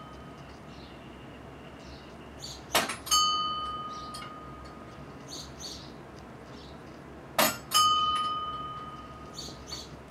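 Large prayer wheel turning and ringing its bell: two strikes about four and a half seconds apart, each a quick double knock followed by a clear ring that fades over a second or so, one strike per turn of the wheel.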